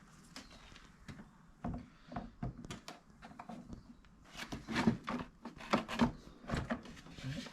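Cold air intake parts being handled and fitted into place: irregular knocks, clicks and rustles, getting louder and more frequent from about four seconds in.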